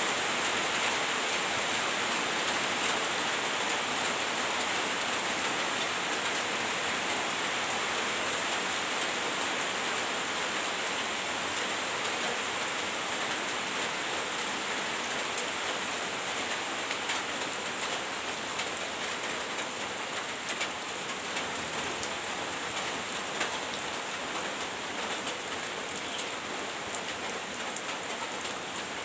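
Heavy rain pouring steadily, with scattered sharper drop hits, slowly easing a little.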